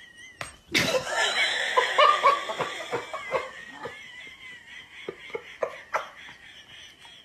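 A person laughing, starting loudly about a second in and carrying on in short repeated bursts that grow weaker toward the end.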